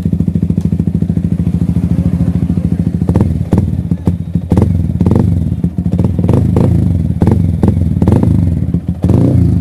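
Yamaha motorcycle engine running steadily at a low, even beat. From about three seconds in, a run of sharp knocks and rattles sounds over it.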